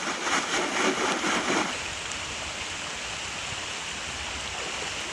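Steady wash of creek water and falling rain. A louder stretch of noise fills the first second and a half, then the water and rain carry on evenly.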